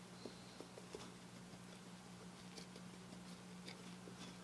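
Near silence: a steady low hum with a few faint, light ticks from a small stiff paintbrush dabbing gold paint onto a 3D-printed plastic part.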